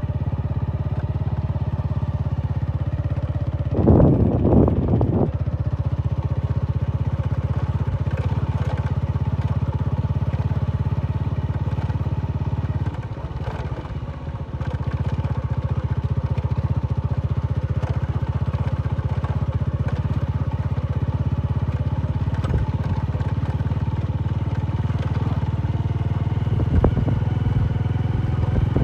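Honda motorcycle engine running steadily under way on a dirt track, with a loud rough burst about four seconds in and a brief drop in level about halfway through.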